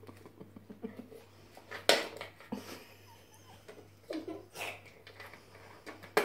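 A small metal tin knocked and scraped across a laminate floor by a cat pawing and biting at it: a few scattered knocks, the sharpest about two seconds in and another at the very end. A short, faint vocal sound comes about four seconds in.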